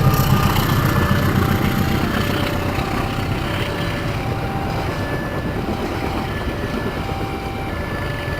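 Train passing through a level crossing, a dense rumble that eases off slowly, while the crossing's warning alarm sounds a repeating two-tone signal that switches pitch about every half second.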